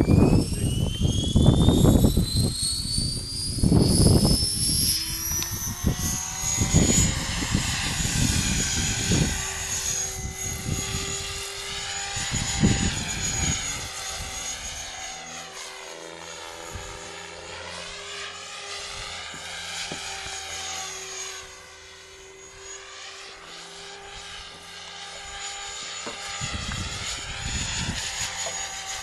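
Radio-controlled Flasher 500 model helicopter spooling up with a rising whine, then flying with a steady whine that wavers up and down in pitch as it manoeuvres, growing fainter as it climbs away. Gusts of wind rumble on the microphone through the first dozen seconds.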